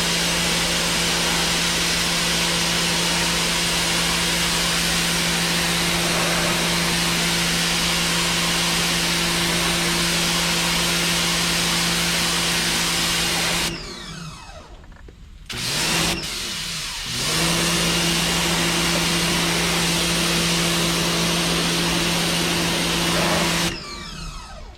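Sun Joe SPX3000 electric pressure washer running, its motor and pump humming steadily under the hiss of the water spray. About 14 s in it cuts off and the motor winds down, then after a short blip it runs again from about 17 s and cuts off once more near the end.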